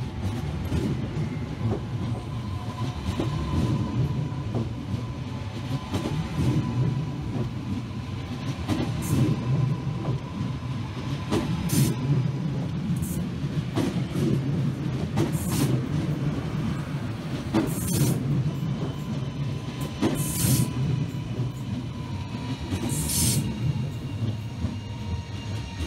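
Renfe Cercanías Civia electric multiple unit rolling past along the platform: steady rumble of wheels on rail with a thin steady whine. From about twelve seconds in come brief high wheel squeals every couple of seconds.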